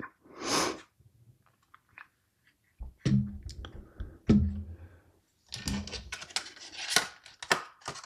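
Hands handling small hard parts: two soft knocks, then a run of light clicks and rattles during the last couple of seconds.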